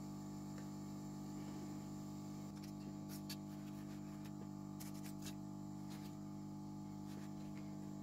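Steady hum of a hot air rework station running, with a few faint light clicks of metal tools on the circuit board about three and five seconds in.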